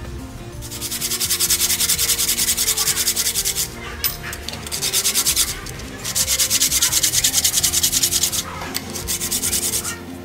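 A small piece of brass handle-scale stock rubbed back and forth by hand on a sheet of sandpaper: fast, rhythmic scratching strokes in several runs, with short breaks about four and eight and a half seconds in.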